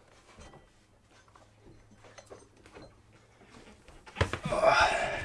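An automotive-type alternator being pulled free of a marine diesel engine's mounting bracket by hand. Faint small knocks and clicks of handling, then about four seconds in a loud scraping, rustling clatter lasting about a second, with a sharp click at its start, as the alternator comes out.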